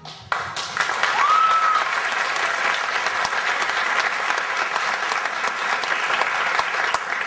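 Audience applauding as a song ends, with one short rising call from the crowd about a second in.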